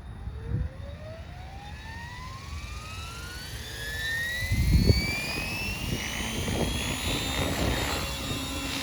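Oxy 5 HF electric RC helicopter spooling up on a soft start: the motor and rotor whine rises smoothly in pitch and grows louder over about seven seconds, then levels off at governed headspeed. There is a low thump about halfway through.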